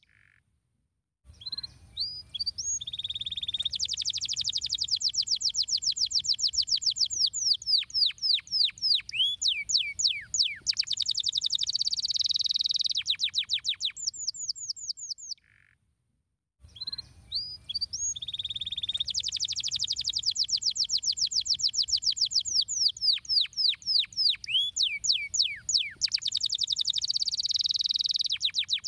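Domestic canary singing a long song of fast rolling trills and rapidly repeated high sweeping notes. The song breaks off about halfway through, and after roughly two seconds of silence the same song begins again.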